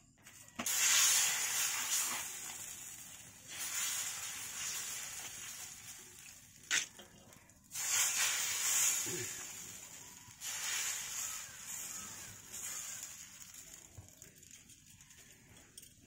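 Batter sizzling on a hot iron griddle as it is spread on by hand: about five loud hisses, each starting suddenly as fresh batter hits the pan and fading over a couple of seconds.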